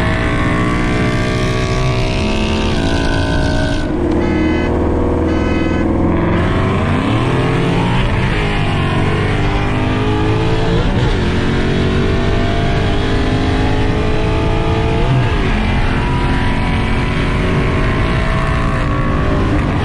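A 2015 Ford Mustang GT's 5.0 L V8, fitted with long-tube headers and a cold-air intake, accelerating hard through the gears of its six-speed manual, heard from inside the cabin. The engine note climbs, drops at each upshift and climbs again, several times over.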